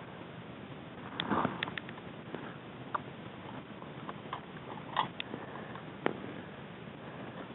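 Handling noise from a player and his airsoft rifle as he moves and gets down onto dry forest floor. There is a short burst of rustling and knocks about a second in, then a few separate sharp clicks and knocks.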